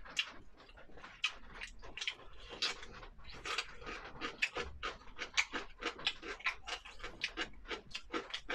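Close-miked chewing and lip-smacking of a person eating sour cabbage fish with rice: quick irregular wet smacks and clicks, several a second.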